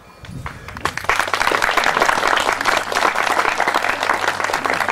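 Applause from the guests, many hands clapping together. It builds over about the first second and then goes on steadily.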